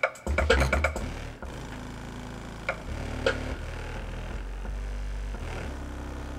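Realistic Mach 2 15-inch woofer playing in free air, without a cabinet: deep bass notes that change pitch every second or so, with a few sharp ticks over them, the loudest cluster just under a second in.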